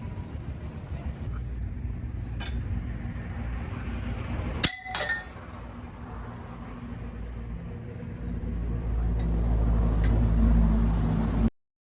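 A single sharp metal clink with a brief ring about five seconds in, over a low rumble that grows louder near the end and then cuts off suddenly.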